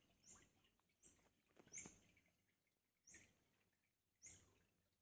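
A bird calling faintly outdoors over near silence: about five short, high calls, roughly a second apart.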